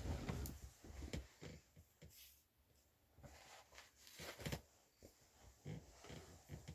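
Faint snoring: irregular, snorting breaths with small clicks, a louder breath at the start and another about four seconds in.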